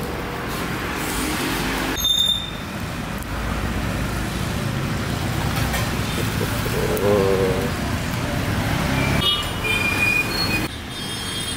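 Road traffic running past, with a vehicle horn sounding briefly about seven seconds in.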